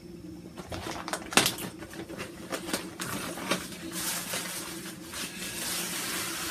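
Clear plastic wig packaging being handled, crinkling and rustling with scattered sharp crackles, growing into a denser crinkle about four seconds in.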